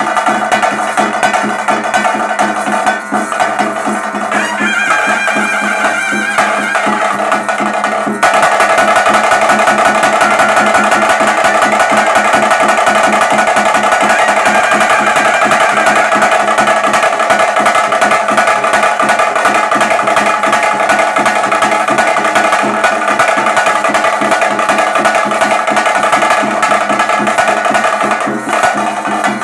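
Traditional Tulu vadya ensemble playing for a Guliga kola: fast, dense drumming with a held melody above it. About eight seconds in it becomes louder and fuller.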